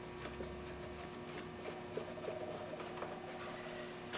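Faint, scattered light clicks and rubbing of a socket wrench turning as the spark plug is unscrewed from a Craftsman push mower's engine, over a faint steady hum.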